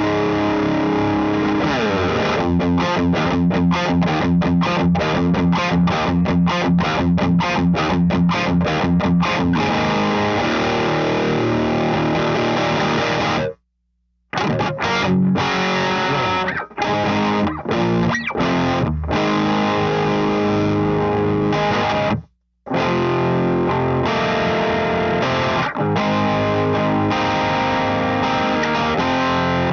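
Overdriven electric guitar played through an LPD Pedals Sixty8 Deluxe drive pedal into a Satellite Neutron tube amp: held chords, then a stretch of fast, even picked chugging, with two sudden stops mid-phrase before the riffing carries on.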